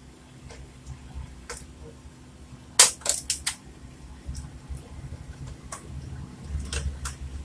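Sharp clicks and taps of small tools handled on an electronics workbench. The loudest comes about three seconds in, followed by a quick run of lighter ones and a few more near the end, over a steady low hum.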